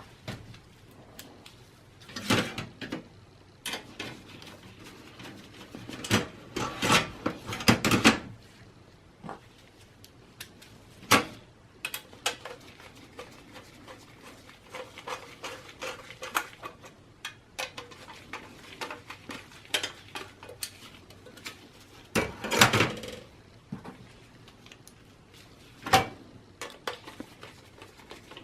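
Intermittent clicks, knocks and metallic clatter as a 3.5-inch hard drive is handled and fitted into a desktop computer's sheet-metal drive cage. The rattles are loudest in clusters a couple of seconds in, around seven to eight seconds, and again near twenty-two seconds.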